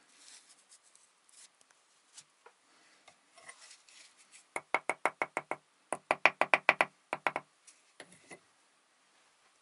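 A small hammer tapping the top of a freshly laid brick to bed it down in the mortar: two quick runs of sharp knocks, about seven a second, midway through, with a few single taps after. Before them come faint scraping and handling sounds.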